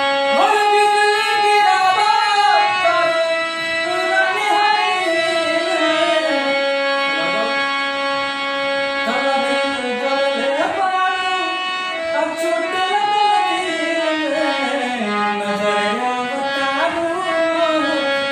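A man singing a Bhojpuri song in a gliding, ornamented melody, accompanying himself on a harmonium that holds steady sustained notes beneath the voice.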